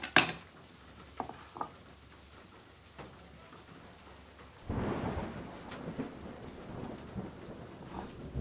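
A kitchen knife is set down on a wooden cutting board with a sharp knock, followed by a few light taps. Then comes a few seconds of rustling and scraping as cubes of cheese are gathered by hand into a ceramic bowl on the board, ending with a knock as the bowl is set down.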